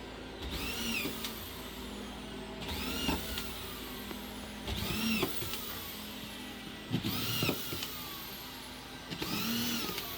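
A power tool's motor whirring up and then down in short pulls, five times, about two seconds apart.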